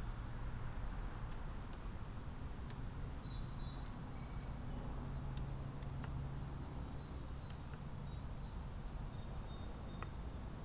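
Outdoor ambience: a steady low rumble with scattered faint, short high chirps and a few light clicks. There is no crow caw.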